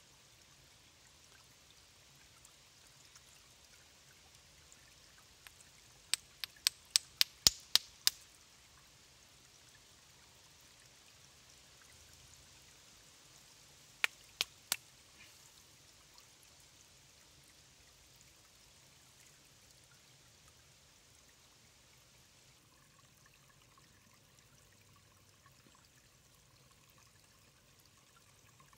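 Shallow stream trickling steadily over a stony bed. A quick run of about seven sharp stone-on-stone clacks comes about six seconds in, and three more come around the middle, as small pieces of limestone are picked out of the streambed.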